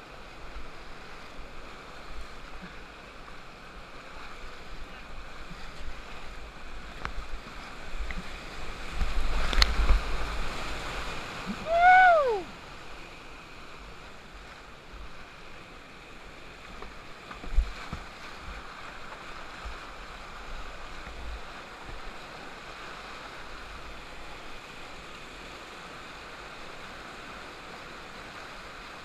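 River rapids rushing steadily around a kayak, with louder splashing a little before the middle. About twelve seconds in comes one short, loud pitched call that rises and then falls in pitch, and there is a sharp knock near the start of the louder stretch.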